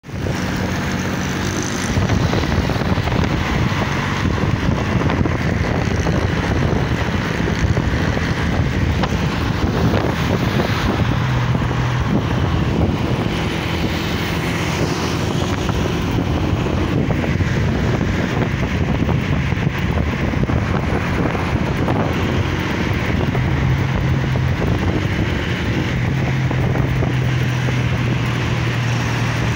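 Honda CG 125's single-cylinder four-stroke engine running steadily while the bike is ridden. Wind buffets the microphone, and the engine note shifts several times.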